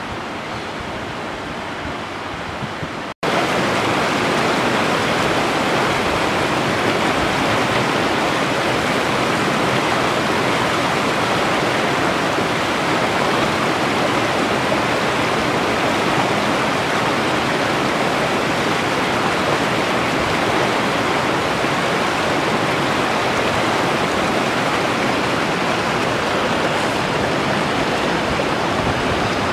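Rushing water of a rocky mountain river running over stones, a steady wash of noise that gets louder after a sudden cut about three seconds in.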